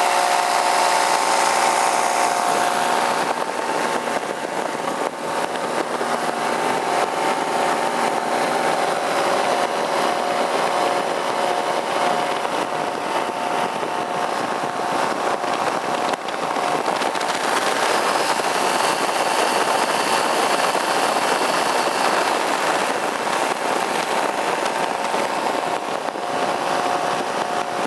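Paramotor engine and propeller running steadily in flight, a constant engine note over a rush of air noise.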